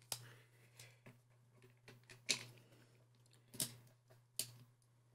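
Soft, irregular clicks and taps of a 35 mm film cassette being handled and set into the open film chamber of an Olympus 35EC camera, with a few sharper clicks about two, three and a half, and four and a half seconds in.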